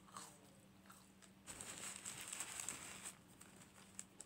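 Close-up eating sounds: McDonald's French fries being chewed, with faint mouth clicks, and a hissy rustle lasting about a second and a half from around the middle.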